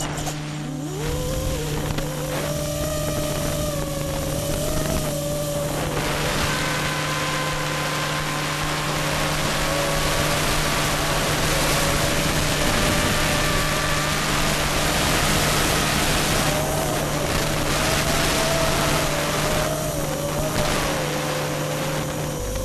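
FPV quadcopter's brushless motors running at a fairly steady throttle, their whine wandering a little in pitch, over rushing wind noise. A steady low hum runs underneath and stops near the end.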